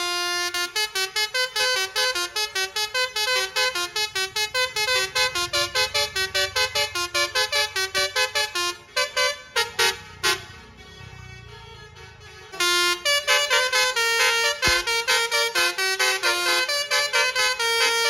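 A bus's basuri multi-tone telolet horn plays a fast dangdut koplo-style tune in short staccato notes. Partway through it stops for about two seconds, then picks up again.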